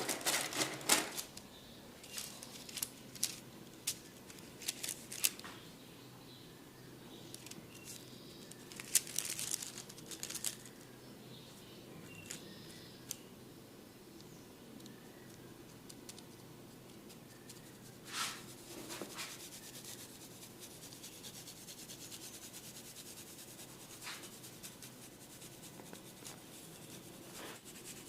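Hands massaging a person's head: a run of sharp taps in the first few seconds and again about nine seconds in, one more about eighteen seconds in, then soft rubbing on hair and skin.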